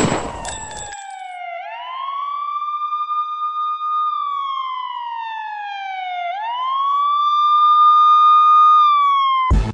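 A single sharp bang right at the start, then a wailing emergency-vehicle siren that slides slowly down in pitch and sweeps back up, twice, growing louder as it comes closer.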